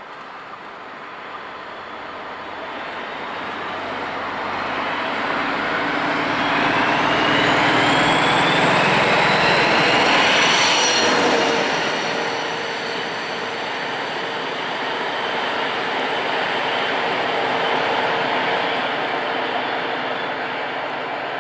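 Class 225 diesel-hydraulic locomotive running light, its MTU 12 V 956 TB 10 diesel engine working hard. It grows louder as it approaches, is loudest as it passes close by about ten seconds in, where its pitch drops, and then pulls away still under power.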